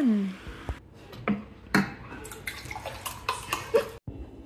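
A spoon serving saucy pork igado onto a plate: wet, sloppy scooping and plopping with several light clicks of the spoon against the dish.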